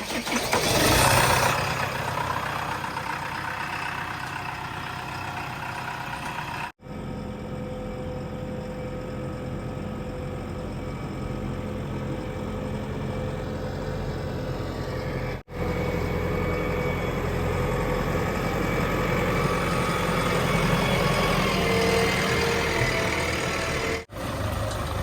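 JCB 3DX backhoe loader's diesel engine running steadily, broken by three brief, sudden dropouts.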